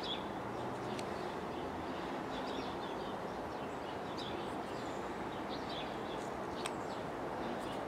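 Steady low rumbling noise with short, high bird chirps now and then.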